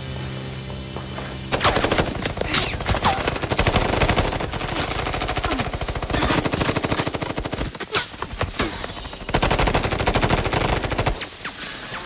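Sustained rapid automatic gunfire from several guns, starting about one and a half seconds in, breaking briefly about two-thirds of the way through, and stopping shortly before the end.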